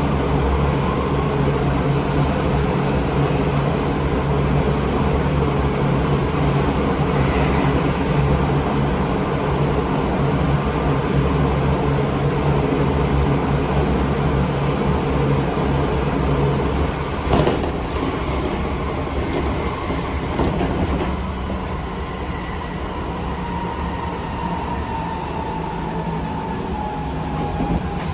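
Running noise of a Seibu 20000 series electric train heard from inside the car, with the steady hum of its Hitachi IGBT-VVVF traction equipment and motors. A sharp click comes about two-thirds of the way through, after which the noise drops a little and a tone slides slowly down in pitch.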